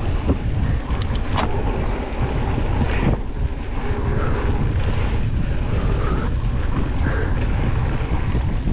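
Wind rushing over an action camera's microphone during a fast downhill mountain bike descent, a loud, steady low rumble. The bike adds a few sharp knocks and rattles over bumps, about a second in and again around three seconds in.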